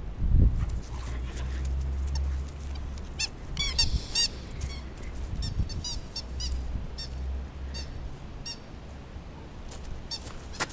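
Squeaky dog toy being chewed by a dog: clusters of short, high squeaks, several a second, that thin out near the end.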